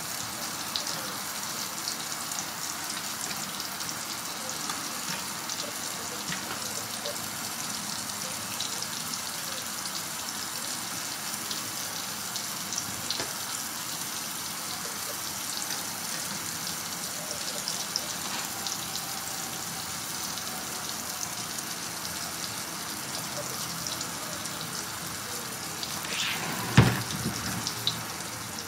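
Broccoli sizzling in a frying pan: a steady hiss with fine crackles. A single sharp knock near the end.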